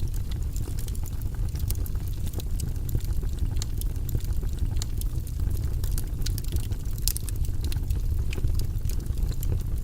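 Fire burning in a fireplace: a steady low rumble of flames with frequent sharp crackles and pops scattered throughout.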